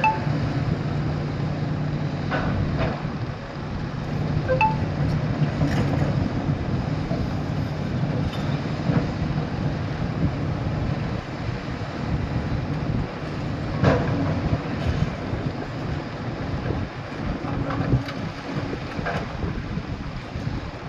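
Heavy machinery running with a steady rumble, a low hum in the first few seconds, and a few sharp knocks. Wind buffets the microphone throughout.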